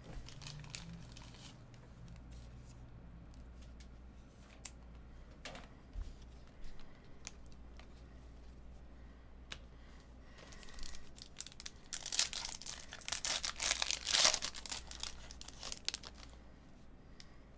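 Light clicks of trading cards being handled, then a Topps Finest baseball card pack's foil wrapper torn open and crinkled by hand for several seconds, starting about ten seconds in.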